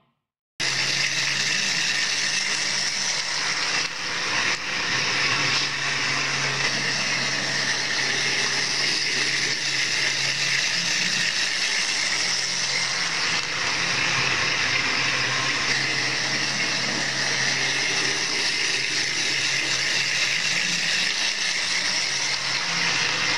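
Lego toy train's electric motor running steadily as the train travels along plastic track: a continuous whirring noise with a low steady hum beneath it, starting about half a second in.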